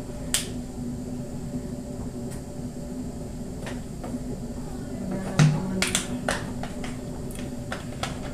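Scattered sharp pops and crackles from Sprite fizzing and simmering over chopped goat meat in a wide pan, over a steady low hum. A brief, louder low sound comes about five seconds in.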